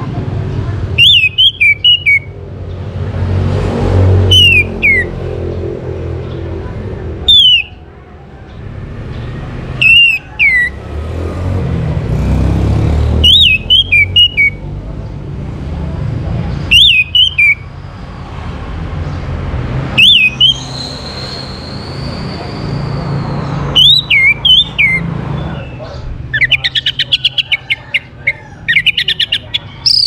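Orange-headed thrush singing: short phrases of quick descending whistled notes, repeated about every three seconds, then a long held whistle about two-thirds through and a fast chattering run of notes near the end. A steady low rumble sits underneath.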